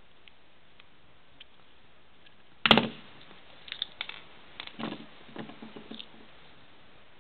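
A plastic electrical plug being handled and pulled apart by hand. One loud sharp click comes near the middle, followed by a run of smaller plastic clicks and rattles.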